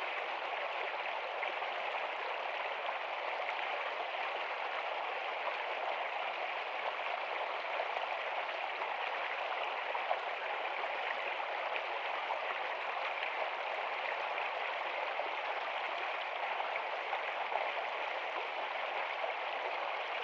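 Steady water noise, an even rush without pauses or changes.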